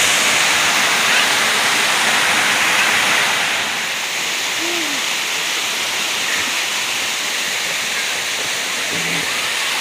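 Steady rush of flowing water, a little louder for the first three and a half seconds.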